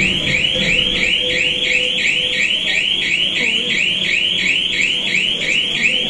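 Lift emergency alarm sounding continuously: a rising electronic chirp that repeats about three times a second, raised while the lift car is stuck.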